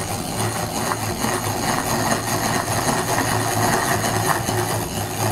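Electric hand mixer running steadily at a constant speed, its twin metal beaters whisking thick cake batter in a glass bowl.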